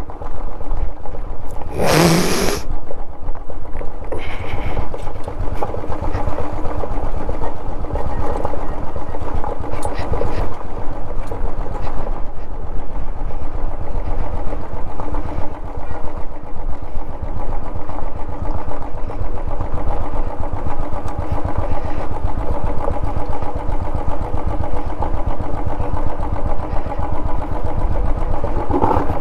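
Royal Enfield 350's single-cylinder engine running at low, steady revs on a rough, rocky off-road track. A short, loud noise sounds about two seconds in.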